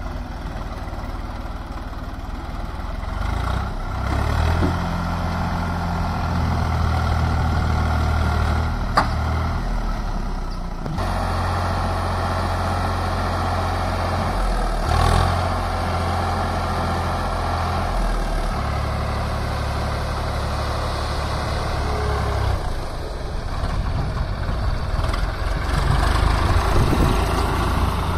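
Swaraj 744 FE tractor's three-cylinder diesel engine running as it tows a mud-loaded trolley, its steady note stepping up and down every few seconds, with a single sharp click about a third of the way in. Near the end the engine note turns rougher and louder as the hydraulic tipper lifts the trolley bed.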